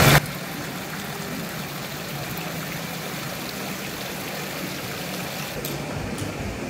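Steady rushing background noise with a low hum underneath, no single clear source.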